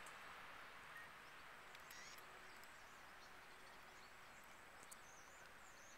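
Near silence: faint outdoor hiss, with a few faint high chirps about two seconds in and again near the end.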